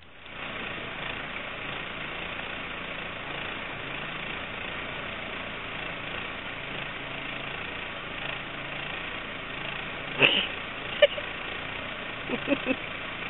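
Steady hum of an idling vehicle engine, with a short loud burst about ten seconds in and a few brief pitched sounds near the end.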